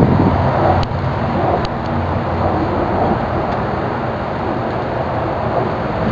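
Steady low rumble and hiss of a running vehicle, with a few faint clicks.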